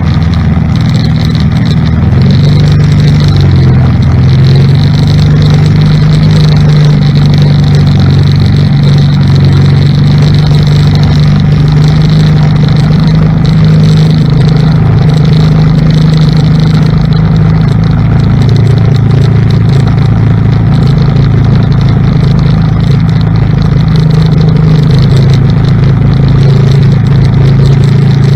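ATV engine running steadily under load while towing a homemade roller crimper. Its pitch dips briefly about three seconds in, then holds even.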